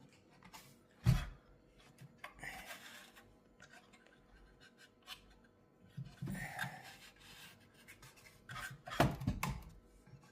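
Handling noises from working on a cuckoo clock and its tools: scattered light taps, clicks and rubbing, with a louder knock about a second in and a few more knocks near the end.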